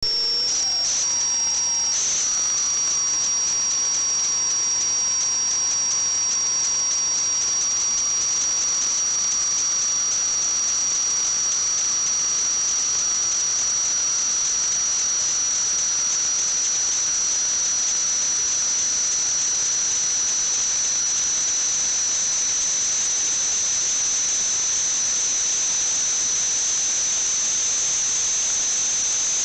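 A steady, high-pitched whistle over a hiss, with a second, fainter tone just below it; a few short ticks sound in the first two seconds.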